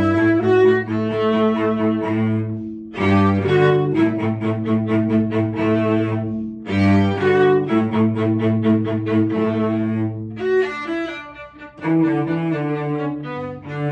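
Viola and cello playing a duet, sight-read on a first run-through. The cello holds long low notes under the viola's line, in phrases with short breaks. About ten seconds in the cello drops out briefly and then comes back in.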